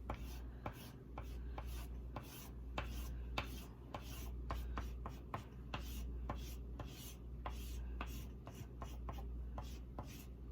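Orange oil pastel being rubbed back and forth on sketchbook paper in quick repeated strokes, each stroke giving a short scratchy tick, over a low steady hum.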